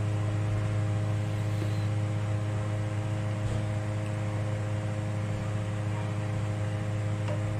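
Kitchen exhaust fan running with a steady, unchanging hum.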